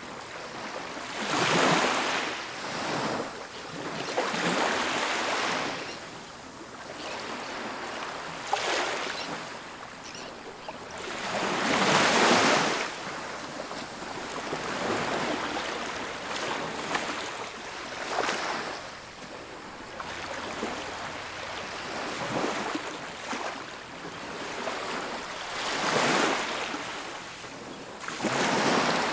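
Ocean waves breaking and washing on a beach, a broad hiss that swells and fades every few seconds, with the loudest surges about a second in, near the middle and near the end.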